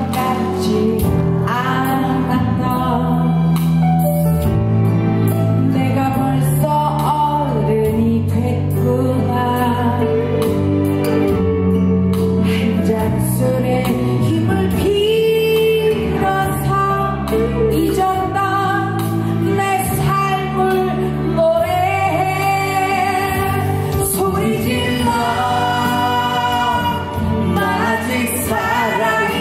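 A woman singing a Korean pop song live into a handheld microphone over instrumental accompaniment, amplified through an auditorium's speakers.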